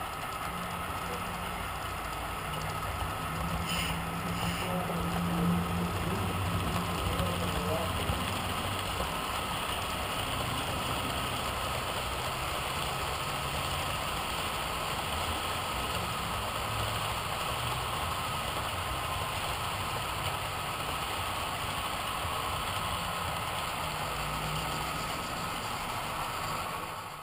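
HO-scale model freight train running along the layout track, a steady mechanical hum and rumble that grows louder for a few seconds about three seconds in.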